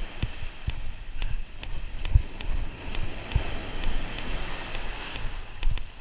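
Surf breaking and washing up the sand, with wind buffeting the microphone in repeated low thumps and light sharp clicks scattered throughout.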